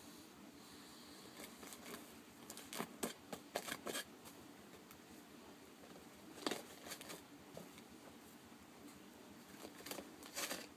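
Tissue paper rustling and tearing, and a cardboard tissue box being handled, as a toddler pulls tissues out of it. It comes in three short bouts of crisp crinkling, a couple of seconds apart.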